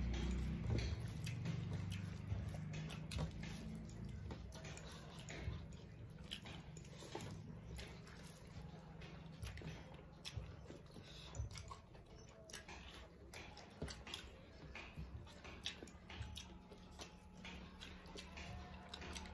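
Two people eating with their hands: wet chewing and lip smacking, with soft irregular clicks and squishes of fingers mixing rice and curry on steel plates, over a low steady hum.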